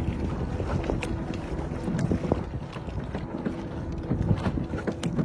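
Water splashing around a hydrofoil strut lowered into the water beside a moving boat's hull, with wind buffeting the microphone and a faint steady hum underneath.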